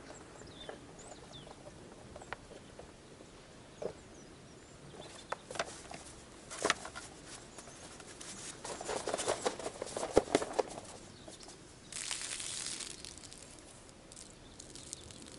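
Rustling, clicks and knocks of diving gear being handled: a wetsuit and long freediving fins taken from a car boot, busiest and loudest about two thirds of the way through, with a short hiss near the end. Faint bird chirps in the background.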